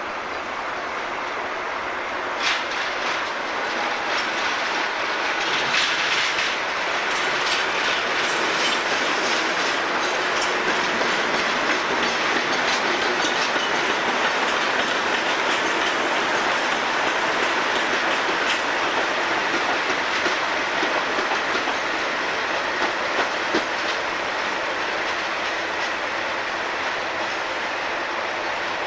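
A pair of Class 37 diesel locomotives, each with an English Electric V12 engine, running light engine past close by. The engine noise grows over the first few seconds as they approach, with sharp clicks of the wheels over rail joints and pointwork, most of them between about six and ten seconds in.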